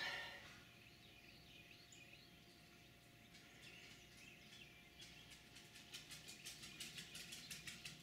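Near silence with faint bird chirps; in the last three seconds a quick run of soft clicks, about five a second.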